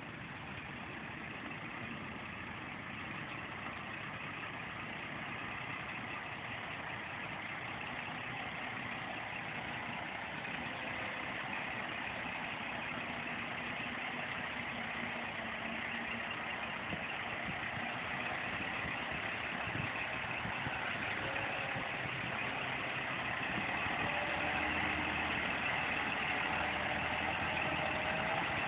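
Scania four-axle tipper truck's diesel engine running at low speed as the truck crawls through mud, growing steadily louder as it approaches.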